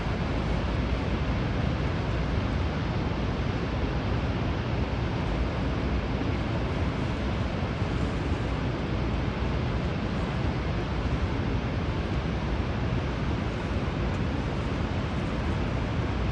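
Rhine Falls waterfall roaring: a steady, dense rush of falling water, heaviest in the low end, with no break or change.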